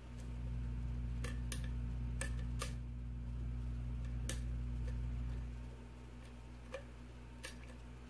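Sharp metallic clicks of a lock pick and tension wrench working the pins of a Yale pin-tumbler cylinder, with the plug held in a deep false set; about eight scattered clicks. A low rumble underneath stops about two thirds of the way through.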